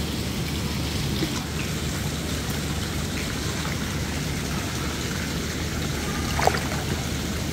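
Steady splashing and trickling of water falling onto a swimming pool's surface, with one brief squeak about six and a half seconds in.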